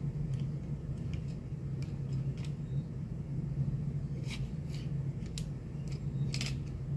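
Small metallic clicks and scrapes of a Stoeger STR-9S pistol's slide, barrel and recoil spring being handled during reassembly, with a few louder clicks from about four to six and a half seconds in. A steady low hum runs underneath.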